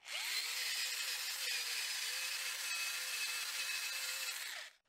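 A small wire wheel on a rotary tool scrubbing rust off a steel ratchet handle: a loud scratching hiss over a steady motor whine. The motor spins up at the start and winds down and stops near the end.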